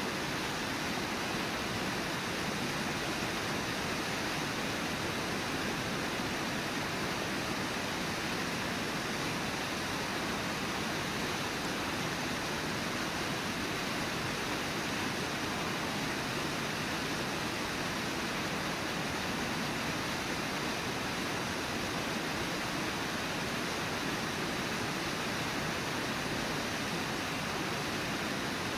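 Steady rush of a small waterfall pouring into a river pool, even and unchanging.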